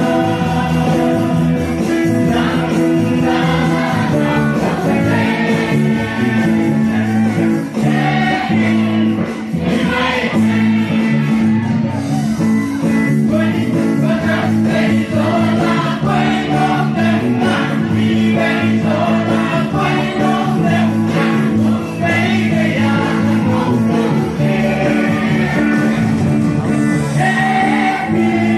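Live band playing a song: a lead vocal over electric and acoustic guitars and a steady backing, amplified through the stage PA.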